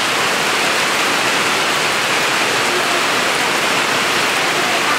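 Heavy rain pouring steadily onto wet ground, puddles and foliage, an even, unbroken hiss.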